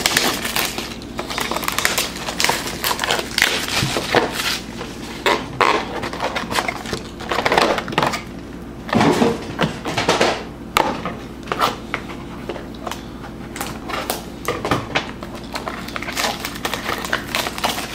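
Topps Triple Threads baseball card boxes being handled and unwrapped: irregular crinkling of plastic wrap, cardboard rustling and knocks as boxes are set down on a wooden desk and opened.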